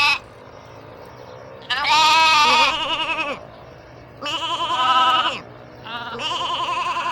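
Sheep bleating: three long, quavering bleats about a second apart, following the tail end of an earlier one.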